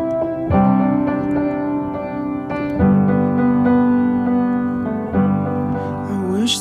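Background music: sustained piano chords that change about every two seconds.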